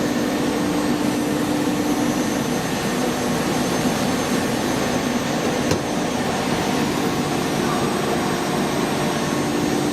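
BMG 1325 CNC router running: a steady whirring machine noise with a steady hum underneath, and one brief click about six seconds in.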